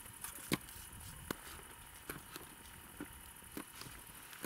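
Opinel No. 8 carbon-steel knife cutting food by hand: a handful of sharp taps at uneven intervals, the loudest about half a second and a second and a half in.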